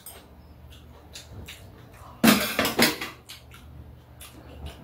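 Metal spoons and chopsticks clinking and scraping against ceramic bowls during a meal, in scattered short ticks. About two seconds in comes a louder burst lasting under a second.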